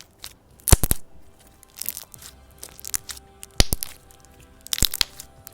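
Jumbo floam slime being squeezed and played with by hand, its foam beads crackling and popping in four short clusters of sharp crackles.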